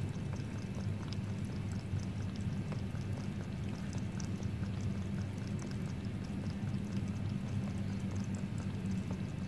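Cat lapping water from a plastic bowl: a run of quick, soft wet clicks over a steady low hum.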